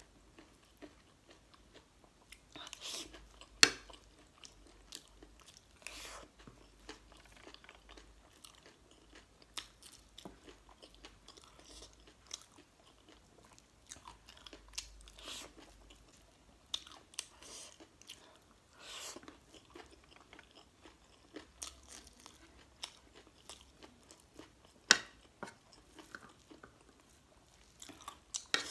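Close-miked eating of spicy gilo chatpate, a wet mix of crushed instant noodles and vegetables: chewing and biting, with short sharp clinks and scrapes of a metal spoon on a ceramic plate.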